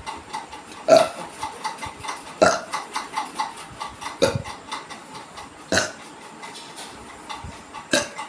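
A woman belching in a quick series: five short, loud burps, about one every second and a half.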